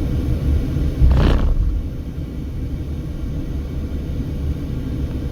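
A car driving on the highway: steady low rumble of road and engine noise, with a brief louder whoosh about a second in.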